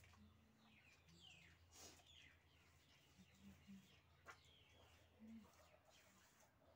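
Near silence: faint birds chirping in short falling calls that repeat every second or so, over a low steady hum, with a couple of soft clicks.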